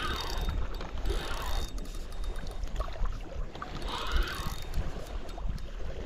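Wind buffeting the microphone with a low rumble, and small choppy waves lapping and washing against the shore in repeated surges.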